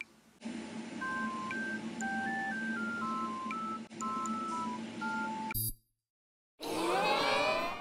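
Simple electronic melody of pure beeping notes, two at a time, stepping between pitches. It cuts off abruptly, and after a short silence a second of many quick sweeping, gliding tones follows near the end, an editing sound effect.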